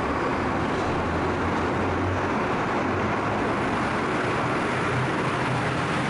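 Funicular car running on its cable incline, a steady rumble and hiss of the moving car, with a low motor-like hum that steps up slightly in pitch about four seconds in.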